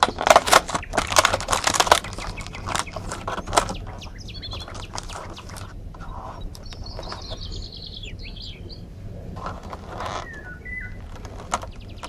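Thin clear plastic clamshell lid crackling and snapping as it is pressed shut, loudest in the first few seconds, with a few more crinkles later. A bird chirps in the background about halfway through.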